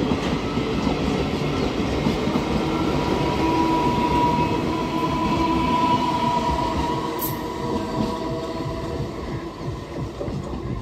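Electric train running along the track with a steady rail rumble. A steady high squeal sounds over it from about three to seven seconds in, and the noise eases toward the end.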